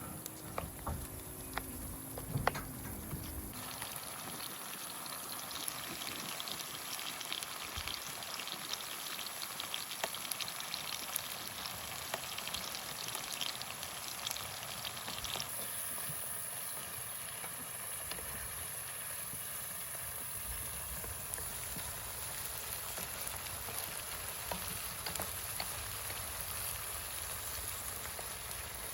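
Food frying in a pan: a steady crackling sizzle that settles in a few seconds in, after a few knocks and a low hum at the start.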